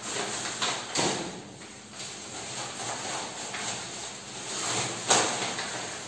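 Plastic food bags rustling and packets and containers being handled in an open chest freezer, with a couple of sharp knocks, about a second in and again near the end.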